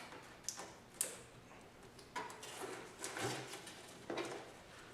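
Faint clicks and scraping knocks of parts being handled on the tail of a Suzuki DR-Z400S motorcycle as its seat comes off: three sharp clicks about half a second apart near the start, then softer scrapes and knocks.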